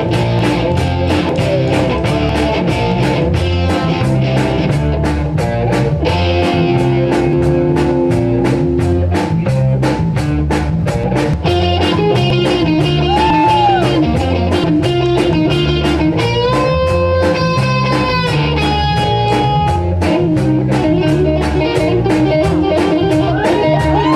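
A rock band playing live, an instrumental passage of electric guitar over a steady drum beat, the lead guitar bending notes several times.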